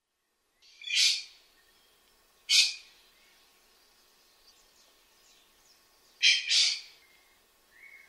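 Golden pheasant calling: loud, short, harsh calls, one about a second in, another a second and a half later, then two in quick succession near the end.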